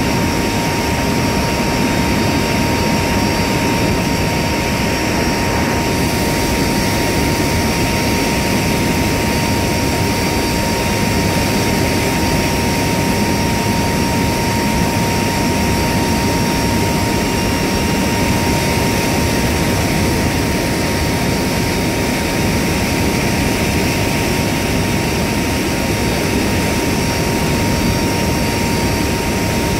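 Aircraft engines and propellers droning steadily, heard aboard the aircraft carrying the camera, with a constant high tone running through the noise.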